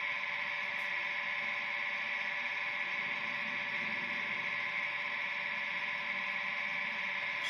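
Sound decoder of an HO-scale model electric locomotive playing a steady standing hum: an even hiss with several held tones, as of blowers running on a locomotive at rest.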